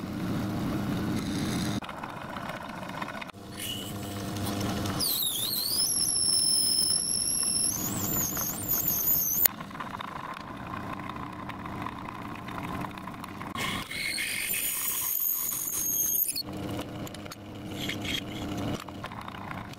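Myford lathe running while a small brass nut is machined, with high-pitched squeals from the cut: a wavering squeal lasting a few seconds about a quarter of the way in, and a shorter steady one later.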